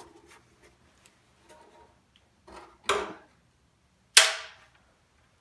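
Small loose parts dropped into the removed outboard engine cowling: a short clatter about three seconds in, then a sharper, louder clack just after four seconds that rings off briefly.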